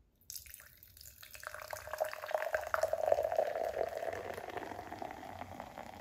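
Dark soda poured in a thin stream into a tall glass, splashing and fizzing with a crackle of bursting bubbles as the foam builds. The pour starts about a third of a second in and grows louder over the next couple of seconds.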